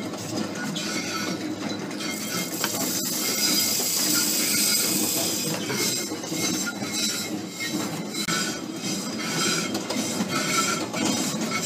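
Green coffee beans pour through the hopper into the turning steel drum of a homebuilt gas-fired roaster, a steady rushing hiss for a few seconds with a sharp click partway through. The beans then tumble in the rotating drum, a swishing clatter that swells about twice a second.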